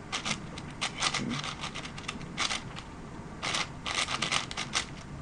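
MGC 6x6 speed cube being turned by hand: irregular bursts of quick plastic clicking and scraping as its layers rotate.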